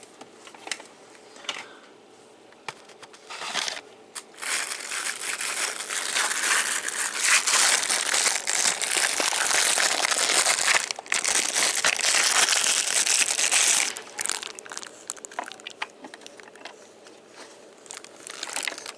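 Plastic packaging crinkling and rustling as it is handled. It runs loud for about ten seconds in the middle, with a short break, and gives way to scattered small clicks and handling noises near the end.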